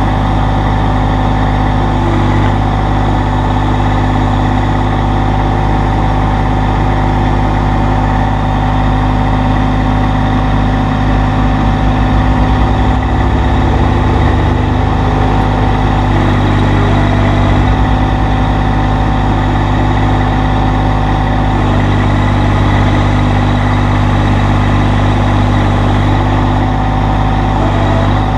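Massey Ferguson GC1720 sub-compact tractor's diesel engine running steadily near idle. Its note rises and falls slightly a few times under light load.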